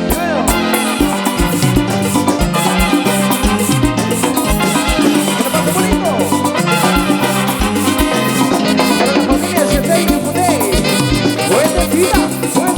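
Salsa music playing loudly, with brass and percussion over a steady beat and no singing.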